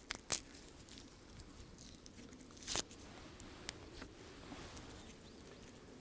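Faint rustling of a garlic clove's papery skin being peeled by hand, with a few sharp clicks, the loudest a little before the middle.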